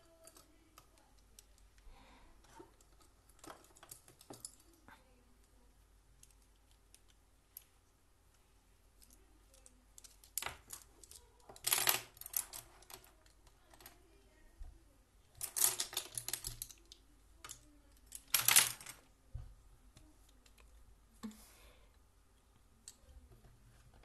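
Small desk sounds: scattered light clicks and taps, with three louder scratchy, rustling clusters in the middle stretch, each under a second or so.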